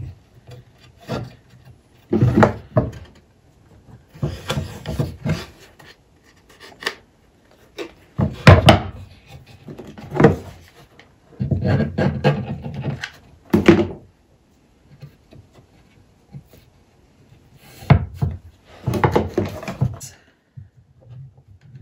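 Handling noises from hot-gluing cotton fabric onto a wooden board: the fabric rubbing as it is pulled tight, hands pressing on the wood, and several sharp knocks of the glue gun and hands on the wood and workbench. These come in short bursts every second or two, with quiet gaps between.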